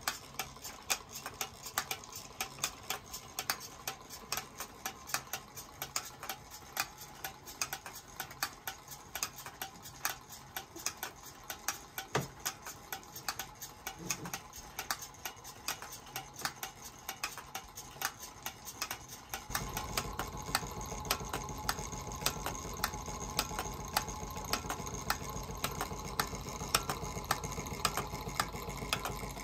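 Märklin 4117/8 toy steam engine running with belt-driven drive models, making a steady rapid clicking. About 19 seconds in, a steady low hum joins and carries on under the clicking.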